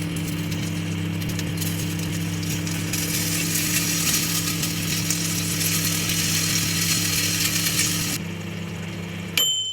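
Microwave oven running with a steady hum while mayonnaise inside it crackles and sizzles. Near the end the oven stops with a click and one short beep.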